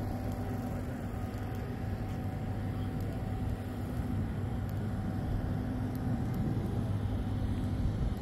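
A steady, low engine drone with an even hum, holding without distinct events.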